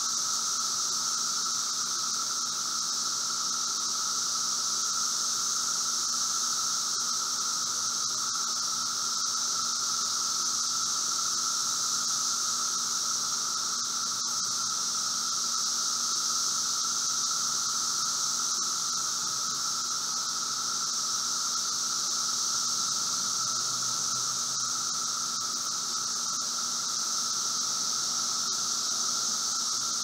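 Chorus of Brood V seventeen-year periodical cicadas (Magicicada) in full song: a steady, even dull roar from many insects, with a high band and a lower tone underneath.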